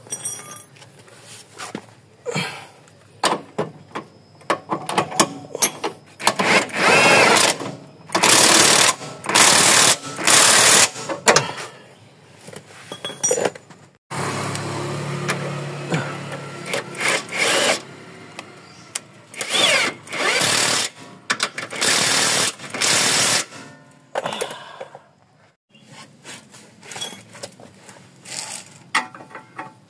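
Cordless impact wrench running in repeated bursts of about a second each, tightening the lower control arm's mounting bolts, with short metallic clicks and clanks between the bursts.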